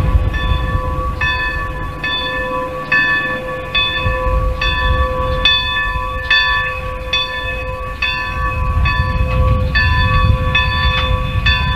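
A bell ringing steadily, struck a little more than once a second, each strike ringing on into the next, over the low rumble of a train.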